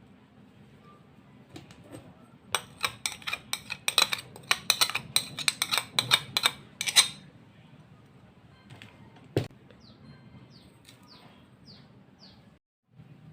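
A run of quick, sharp knocks, about four a second for some four seconds, then one more knock, typical of kitchen preparation work. Near the end a bird chirps five short falling notes.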